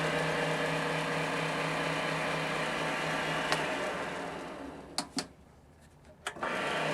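MX-210V benchtop metal lathe running at speed with a steady motor hum, then spinning down about four seconds in. A few sharp switch clicks follow, and it starts up again near the end.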